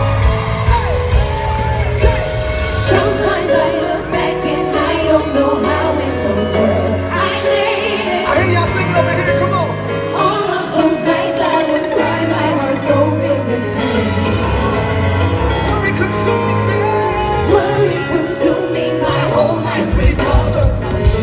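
Live gospel band music with singing over bass and a steady drum beat.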